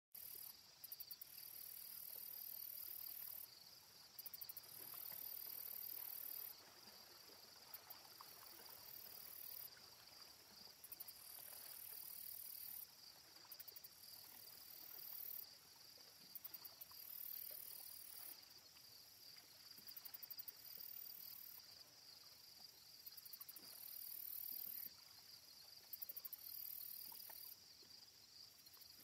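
Crickets chirring faintly: a steady high trill, with a higher, shriller buzz coming in repeated spells of one to three seconds.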